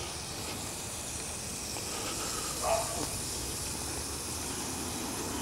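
Steady hiss of steam from a fired vertical fire-tube boiler, with one short, faint sound a little past halfway.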